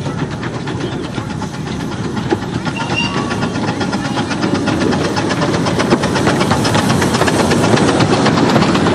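Narrow-gauge steam locomotive working a passenger train past at close range: a rapid, even beat of exhaust chuffs over hissing steam, growing louder as it draws near. Near the end the carriages run by.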